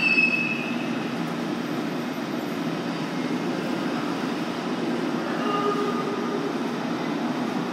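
Tokyo Metro Tozai Line subway train at an underground station platform, giving a steady low rumble, with a brief faint tone about five and a half seconds in.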